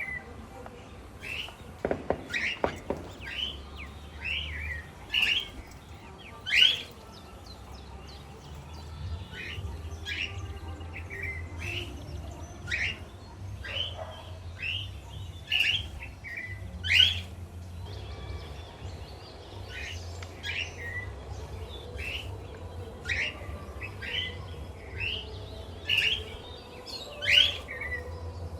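Pet parrots, a lutino cockatiel and budgies, chirping in short, sharp, mostly rising calls about once or twice a second, over a low steady hum.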